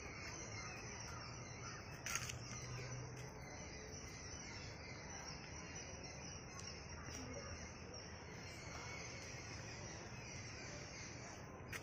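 Quiet outdoor ambience: a steady hiss, with one short, sharp call about two seconds in.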